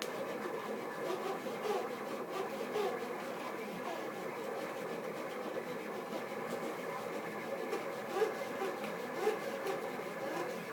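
Stepper motors of a Rostock delta 3D printer driving its carriages through G-code moves: a steady mechanical whine and buzz made of several pitches that waver and shift as the moves change.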